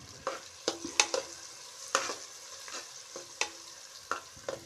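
Chopped onions frying in butter and oil, a steady sizzle, while a spoon stirs them with a string of sharp clicks and scrapes against the non-stick pan. The onions are being cooked until they turn light pink and translucent.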